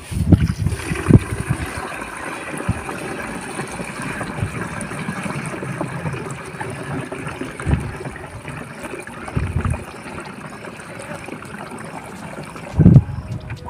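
Water pouring in a steady stream from a plastic bucket into the tank of a backpack sprayer, filling it for mixing a spray. A few low thumps break in, the loudest near the end.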